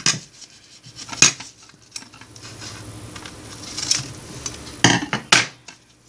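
A roll of glitter craft tape being handled and pulled out on a counter: a few short, sharp crackles and clicks, about a second in and twice close together near the end, with light rustling and tapping between them.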